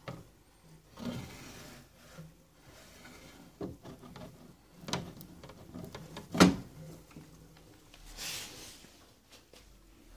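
Scattered knocks and rubbing against a wooden frame, with one sharp knock about six seconds in and a brief scrape a little later.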